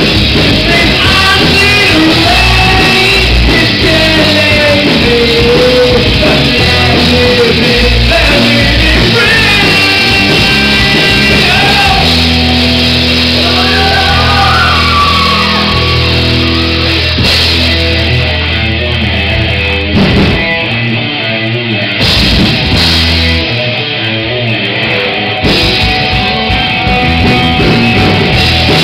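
Live rock band playing loud through a PA: electric guitars and drum kit, with a sung vocal line through roughly the first half. Later the playing turns choppy, with short breaks in the full sound.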